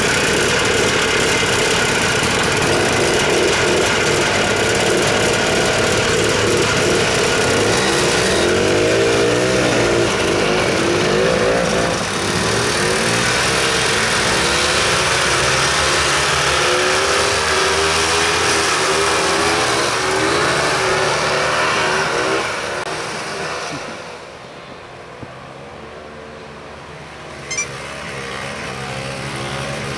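Several old air-cooled two-stroke snowmobile engines running and revving together as a group of sleds pulls away at once. The sound fades abruptly about 23 seconds in, then a single sled's engine grows louder as it approaches near the end.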